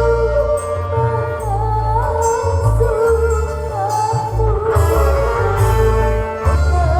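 Music played loud through a large parade sound system, with a heavy bass that shifts in blocks under a wavering, sliding melody line.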